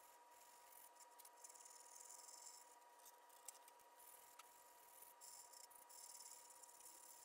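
Very faint rasping of sandpaper rubbed by hand along the sawn edge of a maple bowl, coming in stretches of strokes.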